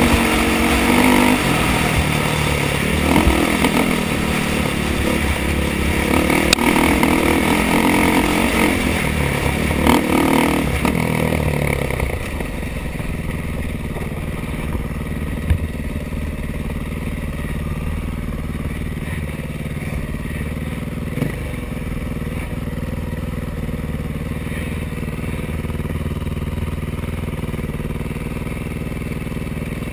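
2013 KTM 500 EXC's single-cylinder four-stroke engine under way while being run in, revving up and down for about the first twelve seconds, then settling to a steadier, quieter, lower note. A few short sharp knocks stand out here and there.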